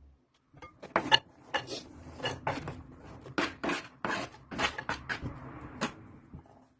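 Kitchen utensils clattering: a dozen or so sharp, irregular knocks and clinks over several seconds.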